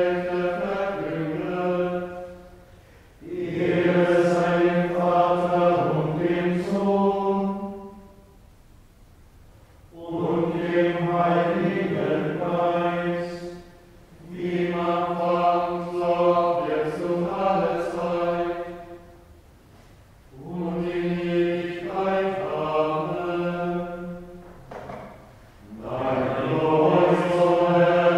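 A choir of men chanting plainchant in unison, each line held mostly on one reciting note. The chant comes in phrases of two to five seconds, with short pauses between them.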